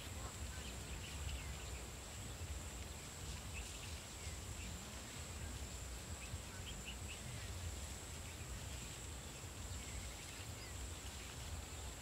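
Open-field ambience: a steady, high-pitched insect drone with scattered short bird chirps over a continuous low rumble.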